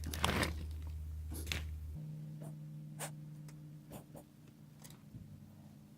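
Faint light clicks and taps of hands handling the iPad and small parts on a work surface, over a low steady hum that changes pitch about two seconds in.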